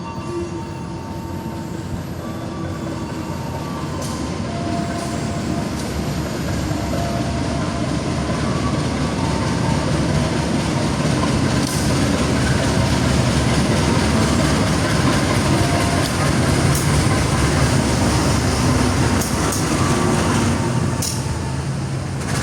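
A train running on the rails, a steady rumble that grows louder over the first half and then holds, with a few sharp clicks in the second half.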